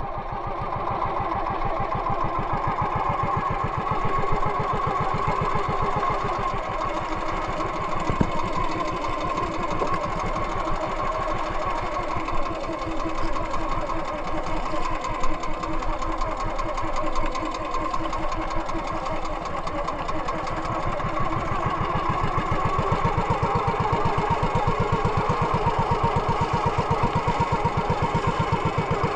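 Small engine of a motorized outrigger fishing banca running steadily while the boat is underway, with water splashing along the hull. It gets slightly louder and more even over the last several seconds.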